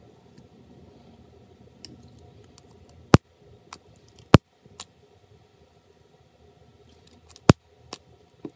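Sharp clicks and light taps from handling the fan housing and its small parts with gloved hands. Three loud clicks come about three, four and a half, and seven and a half seconds in, with softer ticks between them.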